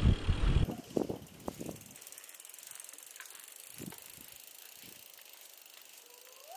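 Wind buffeting an action camera's microphone on a moving mountain bike, cutting off abruptly under a second in. After that the scene is quiet, with a few soft knocks and faint thuds.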